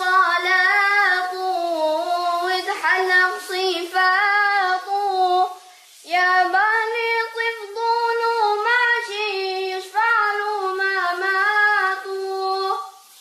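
A boy singing a melody solo, with no accompaniment, in two long phrases with a short break about six seconds in.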